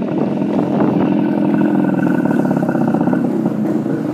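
Motorcycle engine running steadily while riding, heard from on the bike.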